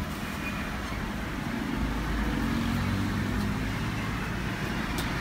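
Steady background noise with a low hum and a hiss, no distinct event.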